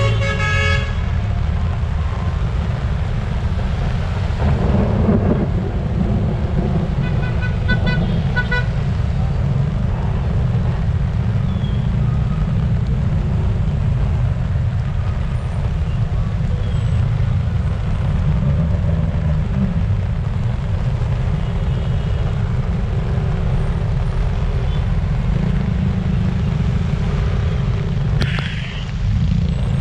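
Heavy typhoon rain pouring onto a flooded city road as motorcycles, buses and cars drive through the water, with a deep steady rumble of traffic. Vehicle horns toot at the start and again in a few short beeps about eight seconds in.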